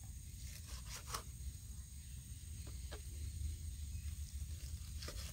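A knife slicing through soft boneless raw beef, a few faint scrapes and tears, the clearest about a second in.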